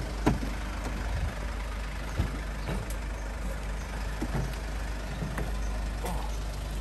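Mercedes CLA car door unlatching with a sharp click as its outside handle is pulled, then a few scattered knocks and bumps as someone steps up and climbs into the driver's seat, over a steady low engine rumble.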